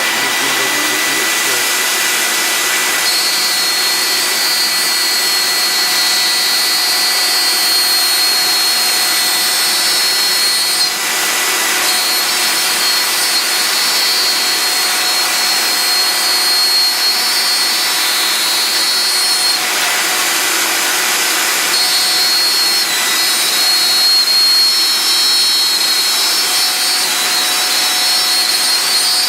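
CNC router running: the vacuum hold-down pump gives a steady rushing hiss. About three seconds in, the spindle's high whine joins as the bit cuts into 18 mm MDF. The whine drops out briefly twice and comes back.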